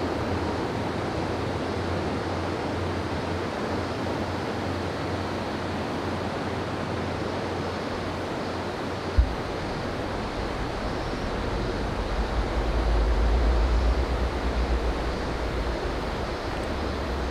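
Steady rushing outdoor noise after a steam train has passed, with a single thump about nine seconds in and a low rumble swelling from about twelve to fifteen seconds in.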